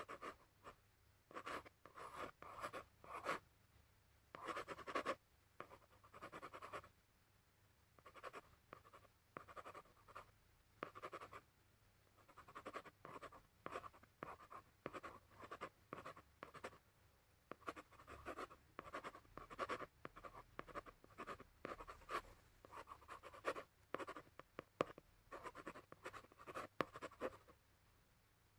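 Gel pen tip scratching on drawing paper in short strokes and dabs. The strokes come in quick clusters with short pauses between and stop about a second before the end.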